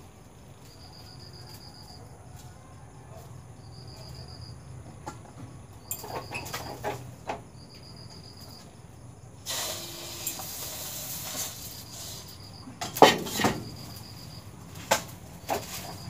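Kitchen clatter as pots and utensils are handled: scattered knocks, a few seconds of crisp rustling partway through, and the loudest clanks near the end. A cricket chirps in short high bursts every second or two behind it.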